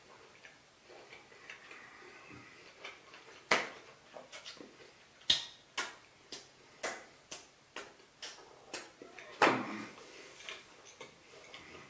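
A person chewing food with the mouth, giving a run of about a dozen sharp clicks and smacks at irregular intervals, two of them louder than the rest.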